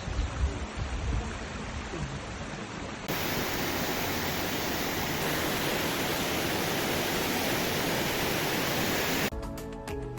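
Steady rushing, hissing noise of the boiling river and its steam, with low rumbling from wind on the microphone in the first seconds. About three seconds in it cuts abruptly to a brighter, even hiss, and music starts near the end.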